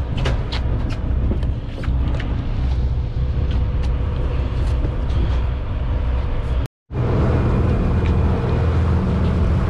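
Charter fishing boat's engine running steadily, with a few light clicks and knocks in the first couple of seconds. The sound drops out completely for a moment about seven seconds in.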